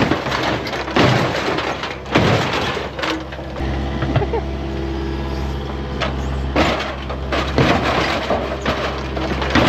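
An excavator's diesel engine running while its bucket smashes a car: a series of crunching impacts with breaking glass, several in the first two seconds and more a few seconds later.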